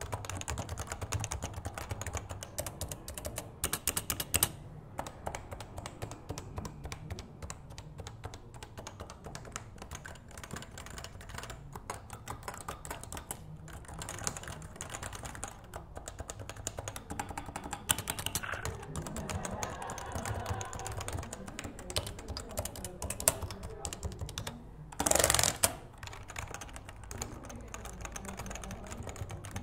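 Continuous touch typing on a Realforce 87 tenkeyless keyboard with Topre electrostatic capacitive (contactless) switches and variable key weights, lighter under the little fingers: a dense, even stream of soft keystrokes picked up by a mic lying beside the keyboard. A brief louder burst of strokes comes about 25 seconds in.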